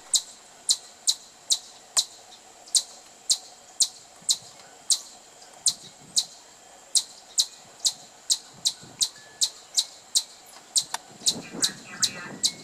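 Squirrel chirping: short, sharp, high-pitched chirps repeated at an even pace of about two to three a second. Near the end a fainter, lower call joins in.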